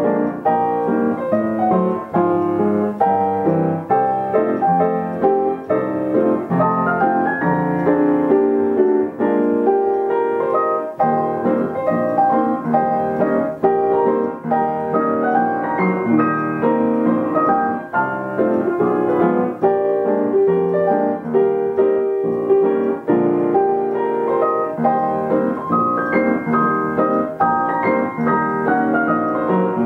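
Upright piano playing a tune, a melody over chords with notes struck in quick succession.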